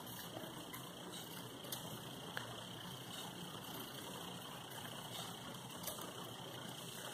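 Scissors snipping painted egg-carton cardboard: a few faint, short cuts over a steady background hiss.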